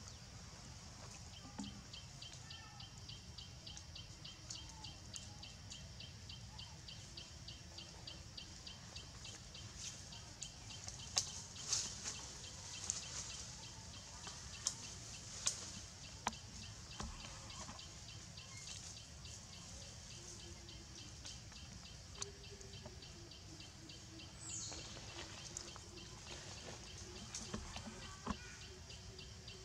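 Faint forest ambience: a high, fast chirp repeated evenly several times a second over a steady high hiss. Scattered sharp clicks and rustles of leaves and twigs come mostly in the middle.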